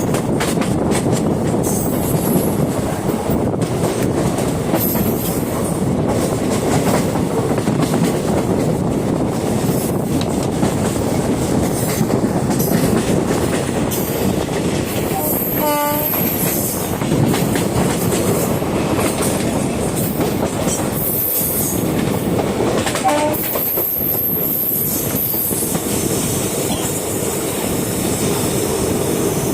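Moving train running on the track: a steady heavy rumble with clickety-clack and a high wheel squeal that comes and goes. A short horn sounds about halfway through.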